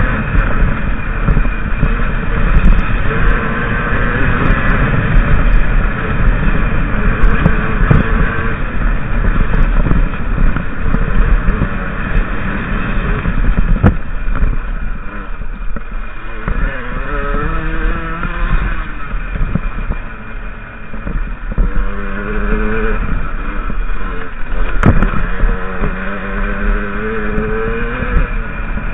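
50cc enduro motorcycle engine running under a rider on a rough, stony trail, mixed with heavy rumble and rattle on the bike-mounted microphone. From about halfway the engine note climbs and drops again and again as the throttle is opened and closed, and there are two sharp knocks, one near the middle and one near the end.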